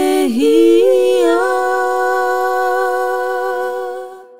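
Female a cappella vocal group singing a sustained chord with no instruments: the voices slide and settle in the first second or so, then hold the chord steadily and fade out near the end.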